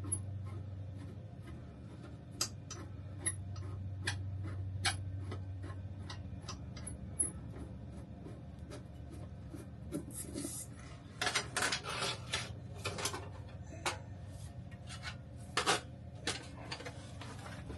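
Scattered light clicks and taps from handling the old RV air conditioner's parts, then from about ten seconds in repeated bursts of scraping and rubbing as pieces are worked loose, over a low steady hum.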